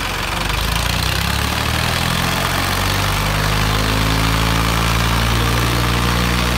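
Diesel engines of the Mahindra Arjun 605 and Swaraj 855 tractors running, with the engine speed rising over the first three seconds and then held steady at a high speed.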